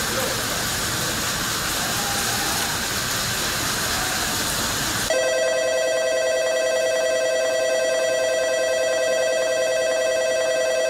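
A steady rushing hiss, then, about five seconds in, an electronic station platform bell starts abruptly and rings continuously on a steady tone.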